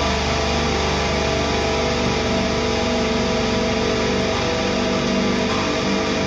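Distorted electric guitar and amplifier feedback droning steadily as a hardcore punk song rings out, a dense held noise with no beat.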